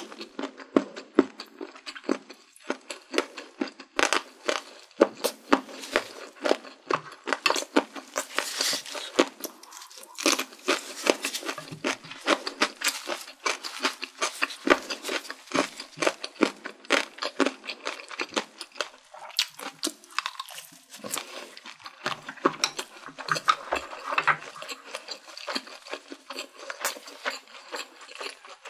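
Close-miked chewing and wet mouth sounds of a person eating, a dense run of small clicks and squishes, with occasional light taps of chopsticks.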